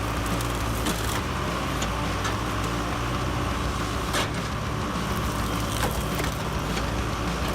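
Engine-driven hydraulic log splitter running steadily, with sharp cracks of wood splitting at irregular moments.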